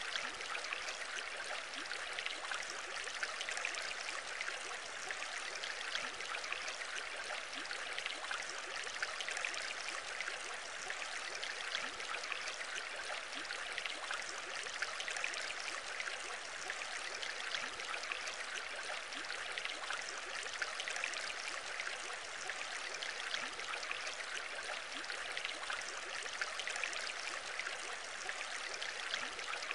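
Aquarium aeration: a continuous stream of air bubbles rising through the tank water and breaking at the surface, a steady fine bubbling with no change.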